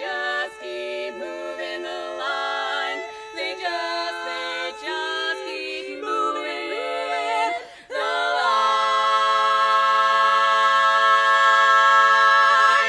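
Women's barbershop quartet singing a cappella in four-part close harmony through the closing bars of the song. The voices move through several chord changes, then swell into a loud final chord held for about four seconds that all four cut off together at the end.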